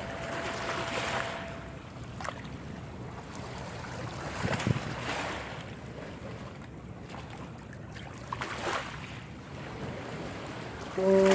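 Water washing along a boat's hull and wind on the microphone, swelling in surges every three to four seconds. A ship's horn starts to sound right at the end.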